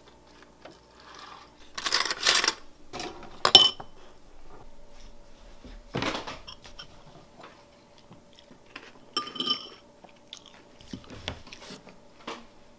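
Metal spoon clinking against a ceramic cereal bowl and the bowl knocking on a wooden table, in scattered short sounds, two of them ringing briefly. A faint steady hum sits underneath.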